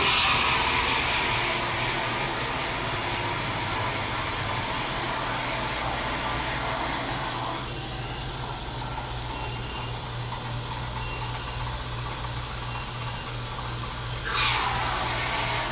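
Liquid nitrogen hissing out of a dispensing hose into stand-mixer bowls: a sudden loud burst at the start fades into a steady hiss that drops away about halfway through, then a second sharp burst comes near the end. A steady low hum runs underneath.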